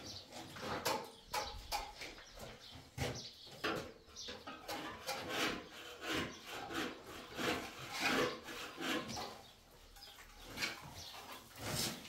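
Hand trowels scraping and spreading wet plaster on walls, in a run of rough, uneven strokes.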